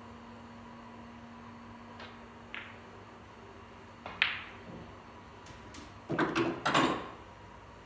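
Snooker balls clicking: a light click from the cue striking the cue ball and a second click about half a second later, a sharper ball-on-ball click about four seconds in, then a short run of louder clattering knocks near the end. A steady low hum runs underneath.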